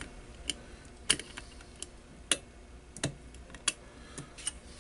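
Small metal parts of a sound level calibrator clicking and ticking as they are worked loose by hand: about ten light, irregular clicks, a few sharper than the rest.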